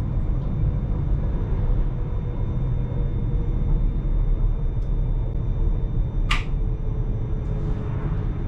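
Electric train running along the track, heard from inside the driver's cab: a steady low rumble with faint steady whines above it, and one brief sharp high-pitched sound about six seconds in.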